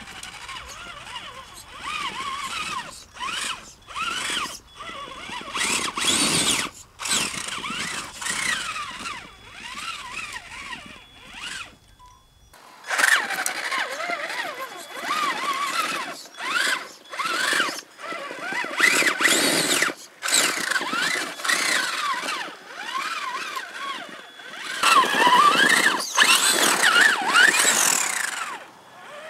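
Traxxas Summit RC truck's brushed 775 electric motor and transmission whining, rising and falling in pitch with the throttle as it crawls over rocks, with scattered knocks of tyres and chassis on rock and dirt.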